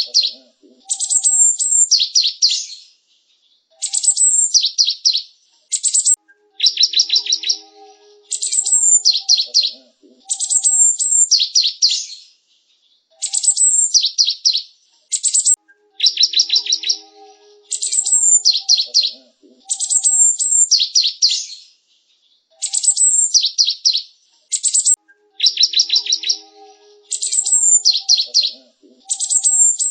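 Cinereous tit (gelatik batu) singing, repeating a short phrase about every two seconds. Each phrase is a very high, sharp note followed by a quick run of clipped notes.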